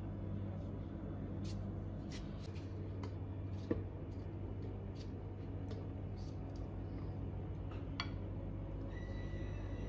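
Small knife cutting and scraping through cantaloupe rind in short scattered strokes, with a sharper knock twice, over a steady low hum.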